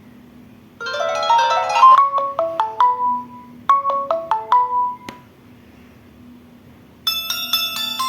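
Samsung Galaxy Young 2 phone playing ringtones: a melody of quick separate notes, first a fast run and then two short phrases of falling notes, which stops about five seconds in. After about two seconds of quiet, a brighter ringtone with many notes ringing together starts near the end.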